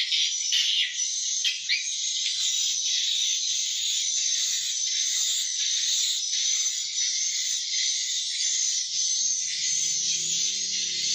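Swiftlets chirping in a dense, continuous high twitter, the calling sound used to lure swiftlets into a nesting house. Sharper single chirps stand out in the first couple of seconds, and quiet music comes in near the end.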